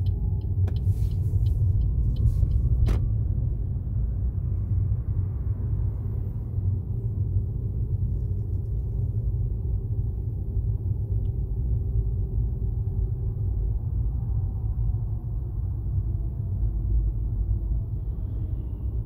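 Steady low road rumble of a car's engine and tyres heard from inside the cabin while driving, with a few light clicks in the first three seconds.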